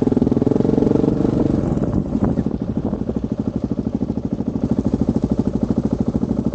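Motorcycle engine heard from on the bike, running at low revs on a dirt track with an even pulsing beat; the engine eases off about two and a half seconds in and settles to a steady, slightly quieter putter.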